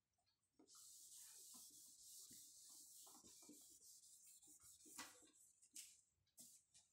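Faint scratching of handwriting on a writing surface, a steady scratch broken by a few sharper strokes, starting about half a second in.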